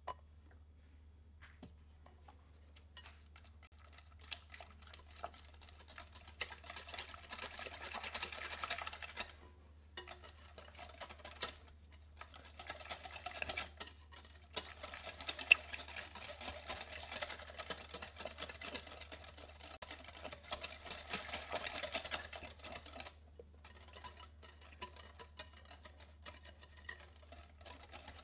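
Wire balloon whisk beating pumpkin mousse mixture in a glass bowl: fast, even strokes with the wires clicking against the glass, pausing briefly twice. A faint low hum lies underneath.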